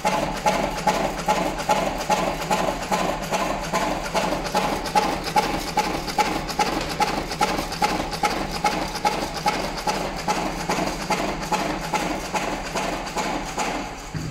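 Electric auger-type cigarette tube filling machine running, its mechanism cycling in a quick, even rhythm of clacks.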